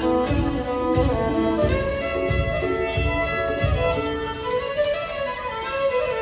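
Violin playing a melody over a backing track, with a steady low beat underneath.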